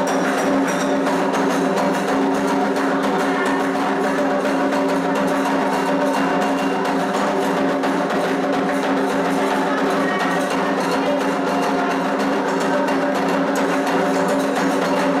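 Candomblé toque for Logun Edé: atabaque drums and a struck bell play a dense, steady rhythm without pause.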